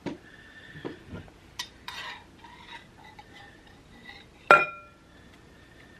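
Kitchen utensils clinking and scraping against a bowl as banana peppers are scooped in, with light knocks throughout and one sharp, ringing clink about four and a half seconds in.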